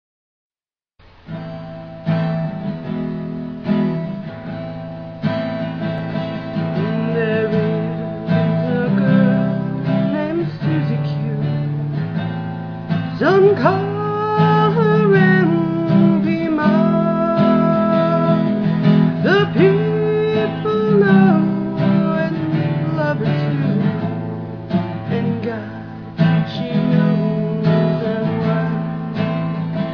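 A song with strummed acoustic guitar and a singing voice, starting about a second in.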